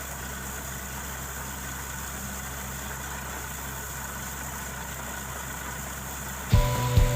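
Steady low drone of an idling engine, as of a borewell drilling rig's engine. About six and a half seconds in, a much louder pulsing sound with several steady tones cuts in abruptly.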